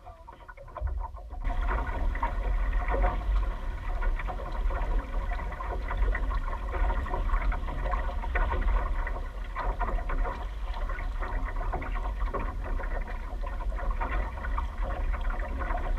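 Wind buffeting the microphone over water rushing and splashing along the hull of a Waarschip 725 sailboat under sail, loud and steady after rising sharply about a second in.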